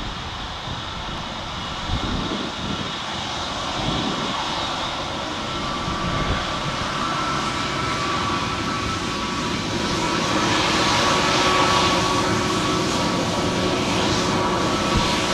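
An Airbus A320neo's Pratt & Whitney PW1100G geared turbofans running at taxi idle as the jet rolls toward and past, their steady whine growing louder as it nears. Wind buffets the microphone underneath.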